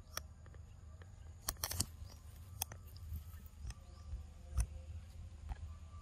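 A young macaque biting and chewing ripe mango flesh: irregular wet smacks and clicks of eating, with a quick cluster of sharper clicks a second and a half in.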